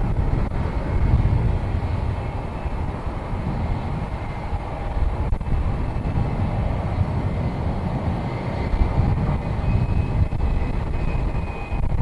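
Wind buffeting the microphone over the steady running of jet airliner engines; a thin high engine whine comes in more strongly near the end.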